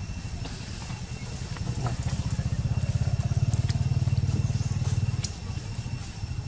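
An engine running nearby, a low, rapidly pulsing rumble that grows louder from about two seconds in and drops back just after five seconds.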